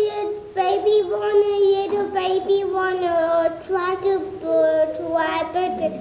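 Several children's voices singing or humming long, wavering held notes together, with short breaks between them.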